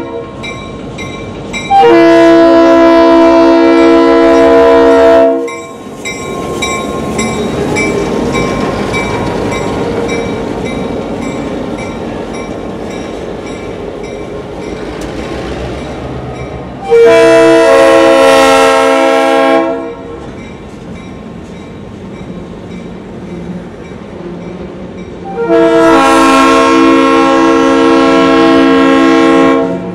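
EMD GP9 diesel locomotive sounding its air horn in three long blasts at a street crossing: the first about two seconds in, the second around the middle, the third near the end. Between the blasts the locomotive's diesel engine and its steel wheels on the rails rumble past, followed by rolling tank cars.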